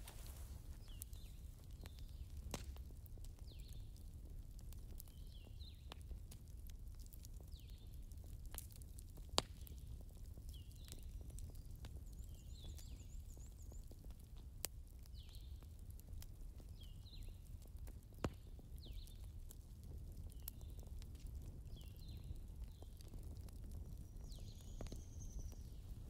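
Soft crackling of a log fire from a digital fireplace recording: faint, irregular pops and snaps over a low steady rumble.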